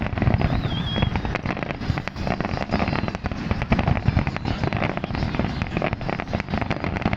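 Fireworks going off in a dense, continuous barrage of bangs and crackles with no pause.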